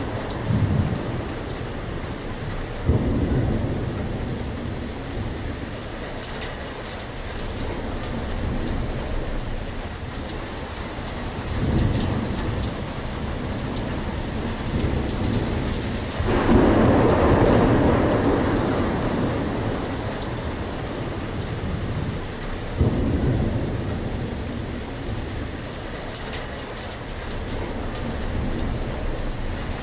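Steady rain with thunder rumbling several times. The longest and loudest roll comes a little past halfway.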